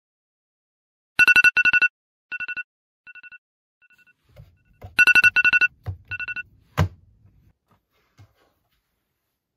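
GE digital alarm clock beeping in rapid bursts of high electronic beeps, loud groups of four followed by fainter groups, going off twice. The beeping stops and a single sharp thump comes about seven seconds in as a hand slaps the clock's button, with bed covers rustling.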